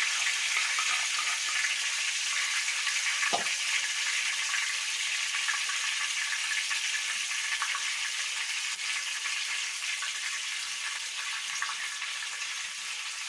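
Chopped vegetables frying in bubbling hot oil in a small pan: a steady sizzle that fades a little toward the end. A single short knock about three and a half seconds in, likely a spoon against the pan.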